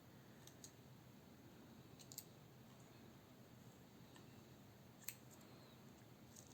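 Near silence: room tone with a few faint, short clicks, twice near the start, a pair about two seconds in and one about five seconds in.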